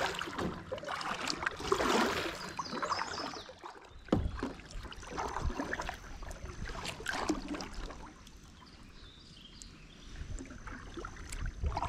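Kayak paddle strokes: the blade dipping and pulling through calm water in irregular swishes, with a quieter lull of a couple of seconds about eight seconds in.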